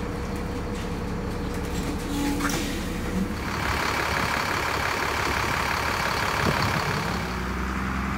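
2004 Nova Bus city bus running, heard first from inside the cabin as a steady low drone. About three and a half seconds in it is heard from the kerb as the bus pulls away on the wet road, a strong hiss over its engine that eases off near the end.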